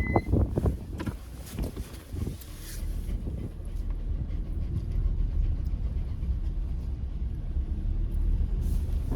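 Hyundai Tucson SUV driving slowly: a steady low engine and road rumble that builds from about three seconds in, after a few knocks at the start.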